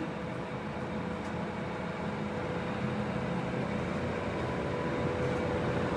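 A Dean Smith & Grace Type 21 heavy-duty lathe running with its 12.5 HP spindle motor turning the faceplate: a steady mechanical hum with a steady whine over it.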